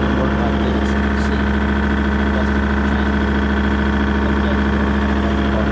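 Kubota tractor's diesel engine running steadily at an even speed.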